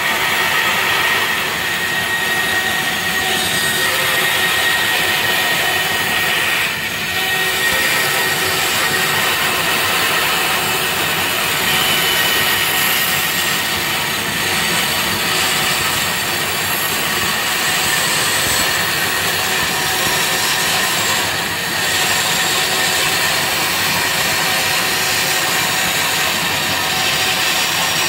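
Bandsaw running and cutting a curved line through plywood, a steady whir of motor and blade.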